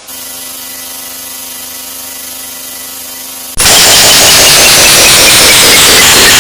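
Sound effects: a steady droning hum, then about three and a half seconds in a sudden jump to an extremely loud, distorted noise with a run of short beeps stepping down in pitch.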